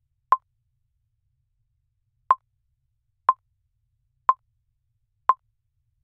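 Countdown timer ticking once a second with short, sharp clicks, one tick skipped about a second in.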